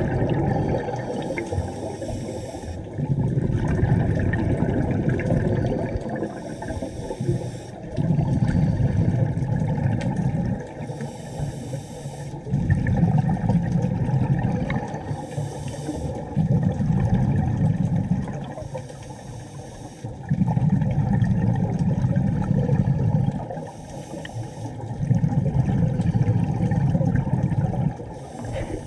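Scuba diver breathing through a regulator underwater: a short hiss on each inhale, then the louder, longer low bubbling of the exhale, about one breath every four to five seconds.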